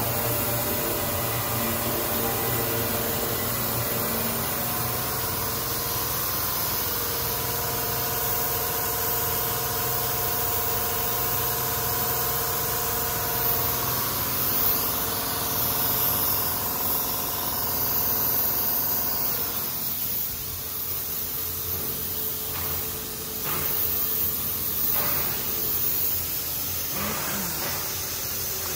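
Ecopolymer KDM-360 dewatering screw press running: a steady machine hum over a hiss of water draining from the wet plastic film. About two-thirds of the way through, the hum's tones fall away, leaving mostly the hiss with a few short knocks.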